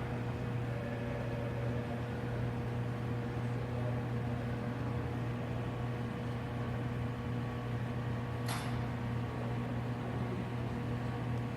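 Steady hum of a Lindberg 51524 box furnace running hot at 1700 °C, its fans and electrics droning with one low, even tone, with a single short click about eight and a half seconds in.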